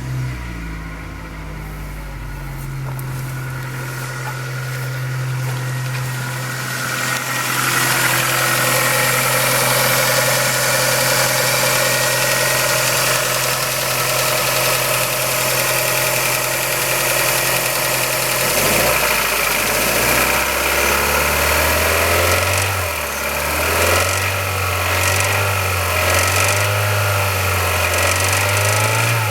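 Kia Ceed's 1.6 L G4FC four-cylinder petrol engine running cold just after start-up, with a rattle. The idle is high and steady at first, drops lower about two-thirds of the way in, then rises and falls repeatedly.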